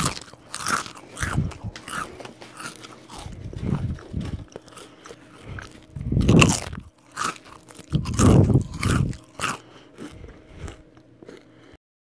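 A person biting into and chewing crunchy food. There are loud bites about six and a half and eight seconds in, and smaller crunches between them, before the sound cuts off abruptly near the end.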